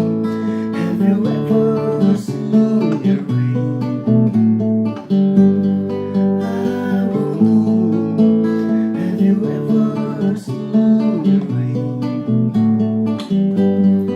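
Acoustic guitar strumming chords in an instrumental passage between sung verses, the chords changing every second or two.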